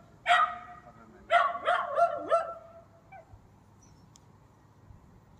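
A small dog barking in high, sharp yaps: one bark just after the start, then a quick run of about four barks about a second later.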